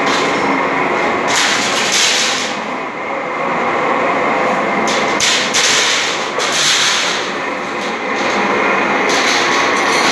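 Industrial roller machine running loudly, a steady mechanical clatter and rumble broken every few seconds by stretches of harsher, hissing rasp about a second long.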